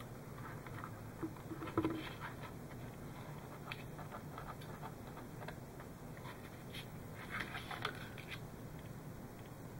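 Faint rustling and light clicks of thin hookup wires and plastic model-kit parts being handled. There are a few small knocks, the loudest about two seconds in and a short cluster near the end.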